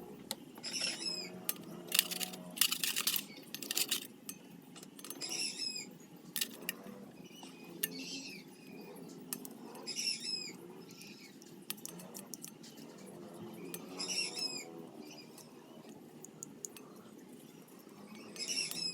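A bird calling repeatedly, about five short curved calls a few seconds apart, against light scattered clicks and taps of small hard objects being handled.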